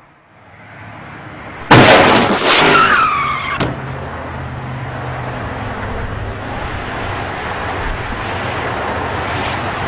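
A sudden loud burst of car tyres screeching, the screech falling in pitch, for about two seconds, then steady road traffic noise.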